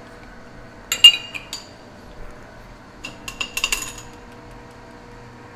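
Metal clinking and clanking from a Monarch engine lathe's tailstock as it is moved up, locked and its centre brought into the centre-drilled end of a steel shaft. There is one sharp clank about a second in and a rattling cluster of clinks from about three to four seconds in, over a low steady hum.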